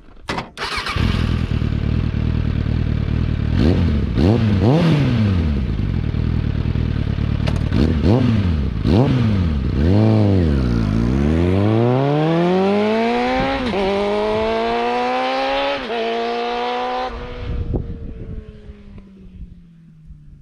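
Suzuki GSF 600 Bandit's inline-four engine through Ixil silencers with the dB killers fitted: several quick throttle blips, then the bike pulls away with the revs climbing and dropping at two gear changes, fading as it rides off.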